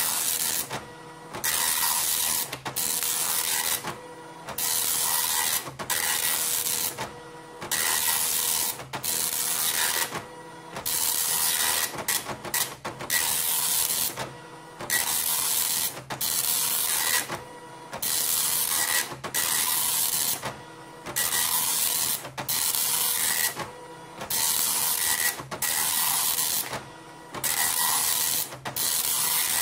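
Panasonic KX-P1180 9-pin dot matrix printer running its self-test demo, printing line after line: each pass of the print head gives a rasping buzz of about a second and a half, with a short pause between lines as the head reverses and the paper advances. Around the middle a few passes come shorter and choppier.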